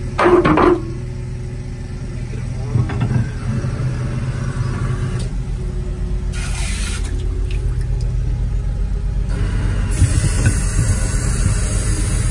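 Pit Shot directional drill running with a steady low rumble while the drill rod is driven into the ground, its level rising slowly. There is a short loud noise just after the start.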